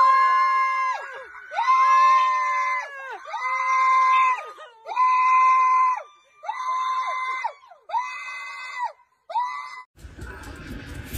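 High-pitched screaming, about eight long held screams one after another that grow shorter and fainter, breaking off about ten seconds in to faint background noise.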